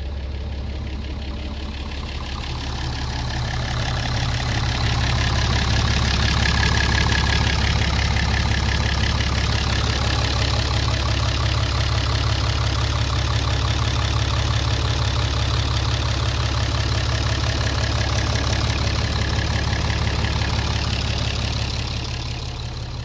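Bedford truck engine idling steadily, just after an easy start. It grows louder a few seconds in and fades again near the end.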